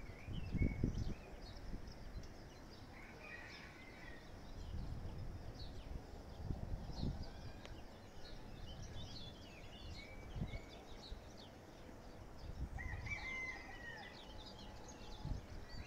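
Several low, dull thumps a few seconds apart, Mount Etna's distant eruption booms, over birds chirping; a rooster crows near the end.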